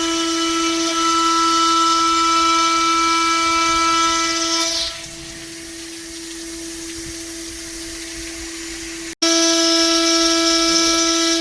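5-axis CNC bridge saw running, a steady high whine with a hiss over it. A little under halfway through the hiss dies away and the whine goes on quieter; near the end, after an abrupt break, the full loud whine and hiss return.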